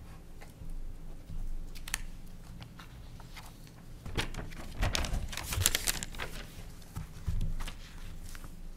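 Papers being handled and shuffled on the table, picked up by the desk microphones: scattered rustles and small knocks, with the loudest stretch of rustling about four to six seconds in.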